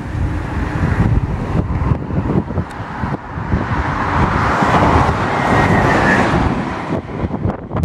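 Wind buffeting the microphone, with a road vehicle passing close by: its noise swells to its loudest about five seconds in and fades away.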